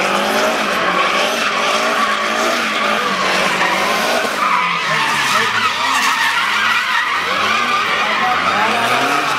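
Porsche 924 drift car with a BMW S14 engine revving up and down as it drifts, its pitch rising and falling repeatedly, with the tyres skidding and squealing on the asphalt.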